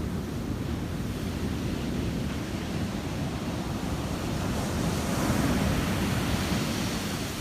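Ocean waves washing onto a beach, a steady rush that swells as a wave breaks about five seconds in, with wind buffeting the microphone.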